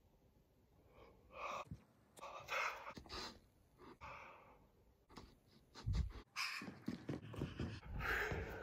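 A man's breathy, huffing vocal noises in short irregular bursts, with a few sharp clicks and a low thud about six seconds in.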